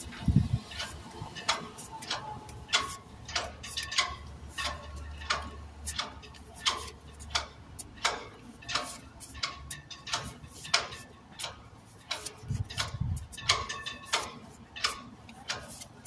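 Vehicle hazard-light flasher ticking in the cab, a steady click about twice a second. A few low bumps come at the start and again about three quarters of the way through.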